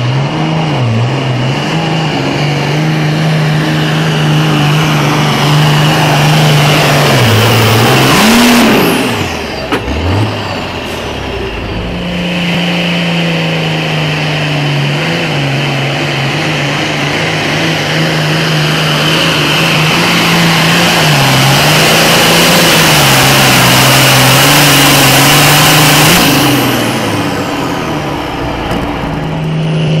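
Super Farm class pulling tractor's turbocharged diesel engine held at full throttle under load as it drags the sled, easing off and winding down about a third of the way in with a falling whistle. A second run follows at full throttle, held steady for a long stretch, and winds down again near the end.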